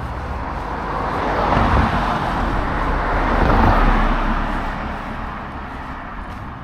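Road traffic passing by: the tyre and engine noise of a vehicle swells, peaks twice around two and four seconds in, then fades away.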